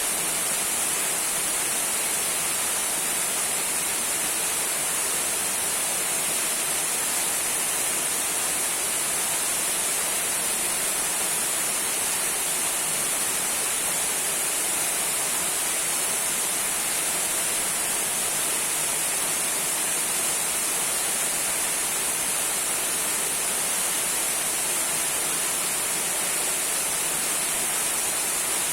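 A trickling waterfall: a steady, even rush of falling water, bright and hissy.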